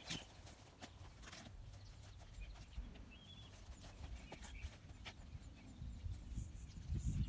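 Dry firewood branches knocking and scraping as they are dragged across grass and dropped onto a woodpile, in scattered irregular knocks, with footsteps and a low rumble that grows louder near the end.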